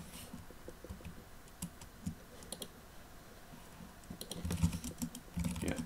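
Typing on a computer keyboard: a few scattered keystrokes, then a quicker run of keystrokes in the last second and a half.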